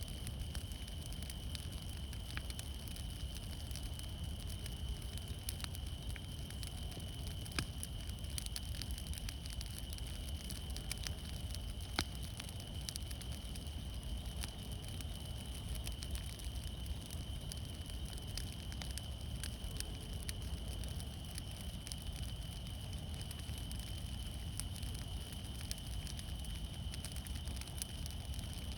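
Fire crackling, with frequent irregular sharp pops and snaps over a steady low rumble. A faint steady high tone runs underneath.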